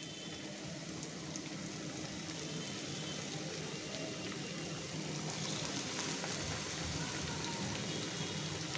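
Hot oil sizzling as skewered, vermicelli-coated chicken balls deep-fry in a pan, growing slowly louder as more skewers are laid in.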